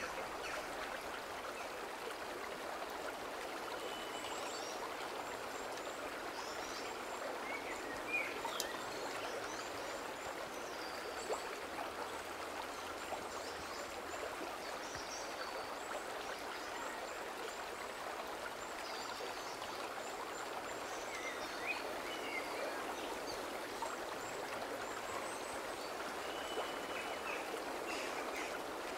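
Fast forest stream rushing over rocks, a steady even rush of water. Short, high chirping calls, likely small birds, come and go over it.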